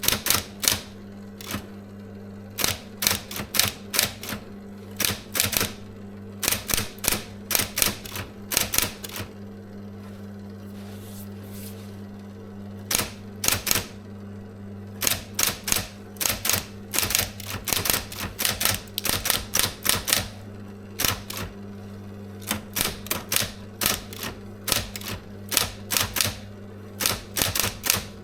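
SIGMA SM 7800 K electric typewriter being typed on: runs of quick key strikes, several a second, broken by short pauses, with a longer pause about a third of the way in. A steady low hum runs underneath.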